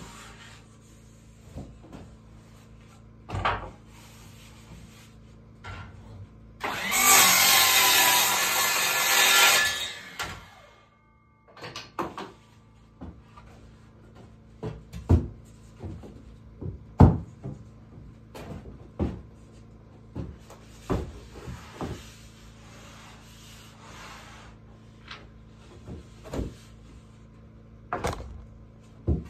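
Electric sliding compound miter saw running through a cut for about three seconds, a few seconds in, its motor pitch bending as it loads and winds down. Around it come scattered knocks and clatter of wooden boards being handled and set down.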